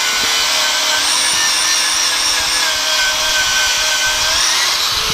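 Angle grinder grinding bare steel, taking paint and mill scale off the weld surfaces: a steady loud whine with grinding hiss, its pitch sagging under pressure and rising again near the end as the load comes off.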